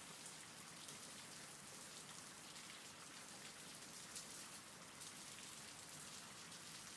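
Faint, steady rain, an even hiss with scattered sharper drop ticks.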